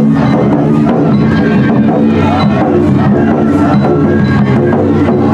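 Japanese float-festival music: percussion struck in a steady rhythm over a sustained low drone.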